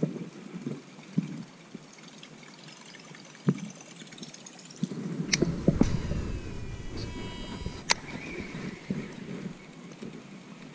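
Rustling and handling noise as a person pushes through bankside grass, loudest about halfway through, with a few sharp clicks.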